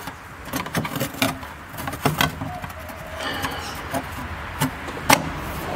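Light taps and clicks of a hand pressing and tapping a carbon-fibre panel fitted into plastic dashboard trim, a scattered handful of sharp knocks with the sharpest about five seconds in.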